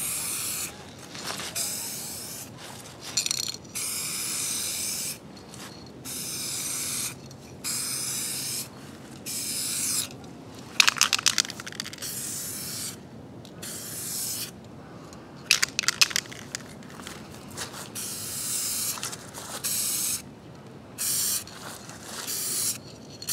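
Aerosol spray can of custom-mixed color-match paint hissing in many short passes, each about a second long with brief gaps between, as a coat of paint is laid on a car mirror. Short clicking rattles come twice midway.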